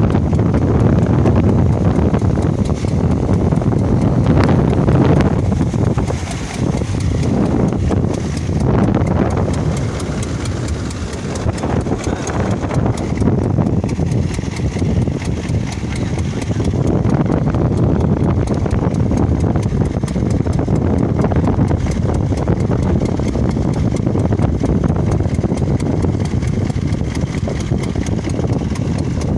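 Fishing boat's engine running steadily, with a fast, even chugging beat.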